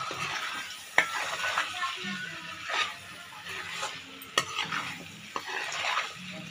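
Metal spoon stirring thick chickpea curry (chole) in a kadhai, scraping and clinking against the pan, with the masala sizzling over the heat. The sharpest clinks come about a second in and again just past four seconds.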